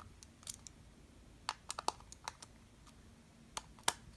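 Small precision screwdriver tightening the fan screws on a metal receiver case: scattered light clicks and ticks, a quick run of three about halfway through and the sharpest click near the end.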